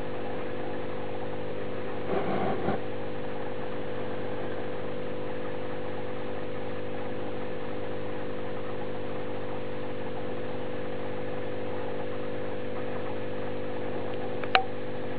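Steady electrical hum made of several even tones at a constant level. A brief rustle comes about two seconds in, and one sharp click near the end.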